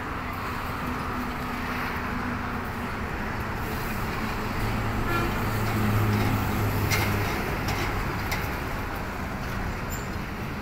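Outdoor traffic noise: a steady hiss, with a motor vehicle's low drone swelling about halfway through and then fading, and a few faint clicks.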